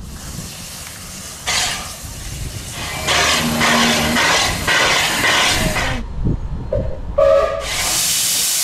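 Steam locomotive moving slowly, tender first, with hissing steam and a run of rhythmic beats. A loud, steady hiss of escaping steam starts near the end.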